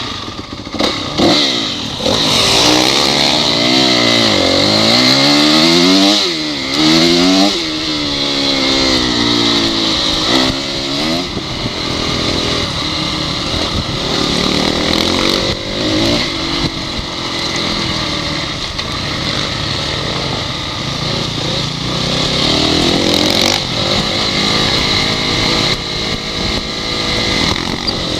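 Honda CRF dirt bike engine under way, revving up and dropping back repeatedly through the gears in the first several seconds. It then runs more steadily at speed with smaller rises and falls.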